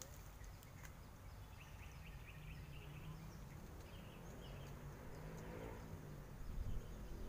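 Faint outdoor swamp ambience: a steady low rumble with small birds chirping in short high runs in the first half, and a dull bump near the end.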